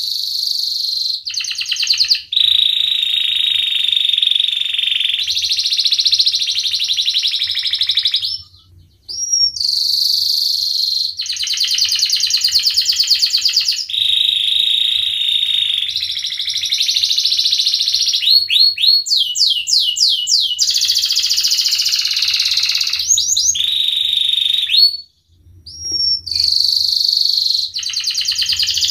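Domestic canary singing without letup in long rolling trills, one phrase running into the next, with a run of quick sweeping notes about two-thirds of the way through. The song breaks off briefly twice, about nine seconds in and again near the end.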